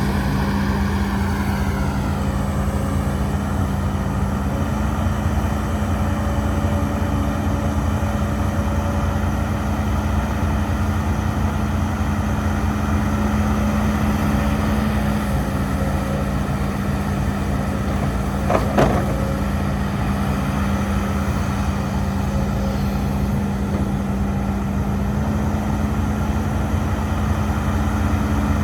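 Heavy diesel engine of a Hidromek HMK230LC excavator running steadily, its pitch shifting slightly now and then. A whine falls in pitch over the first couple of seconds, and there is a single short knock about 19 seconds in.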